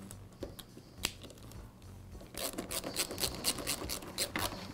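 Nut driver turning the screw of a steel band hose clamp to tighten it: a single sharp click about a second in, then a quick run of clicks and scrapes from about halfway through as the screw draws the band tight.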